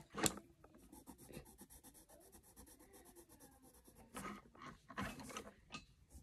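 Faint scratching of drawing strokes on paper, with a few louder strokes or rubs about four and five seconds in.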